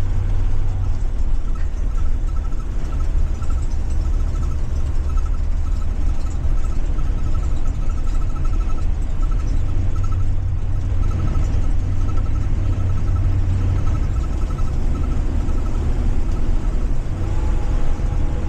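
Ford 7.3 gasoline V8 of a 2023 Blue Bird Vision school bus running under way, a steady low rumble heard from the driver's seat. A high electronic beep repeats in short runs through most of it.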